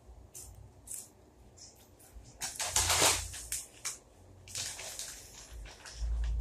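Crisp crunching and crackling of ghost pepper tortilla chips being chewed close to the microphone, with a louder, longer noisy burst about three seconds in.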